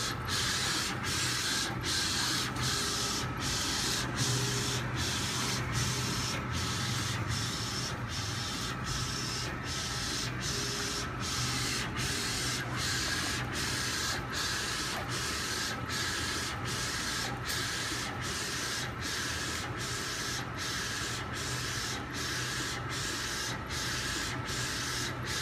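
Mutoh 1204 Plus wide-format inkjet printer printing: the print-head carriage sweeps back and forth in a steady hiss, broken by a short pause at each reversal about twice a second, over a low hum.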